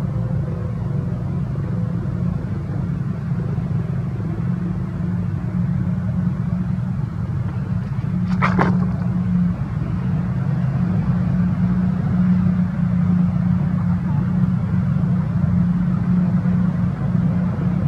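Steady low rumble, with one brief high-pitched squeak a little past halfway.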